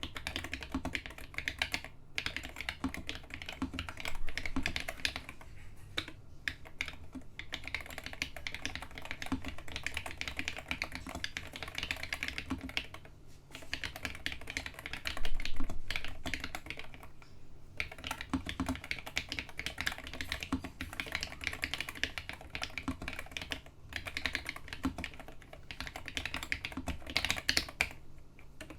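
Continuous typing on a homemade 68% mechanical keyboard with first-generation Hi-Tek space invader switches: a rapid stream of keystroke clicks, broken by a few short pauses, with a louder cluster of strokes about four seconds in and again midway.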